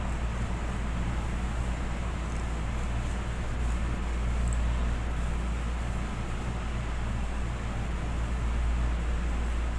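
Steady low hum and rumble with a faint hiss over it, a constant machine-like background drone that does not change.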